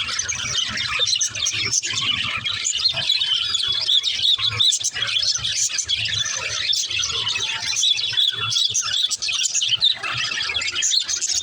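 Budgerigars chirping and chattering, many high calls overlapping without a break.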